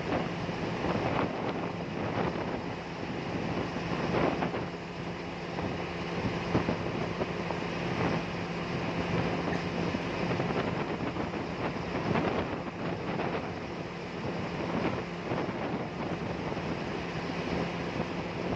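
River water rushing steadily, with wind gusting over the microphone. A steady low hum runs underneath.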